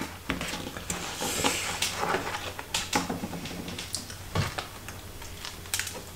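A cardboard burger box being opened and handled, then a fried chicken burger bitten into and chewed, with many small clicks and rustles.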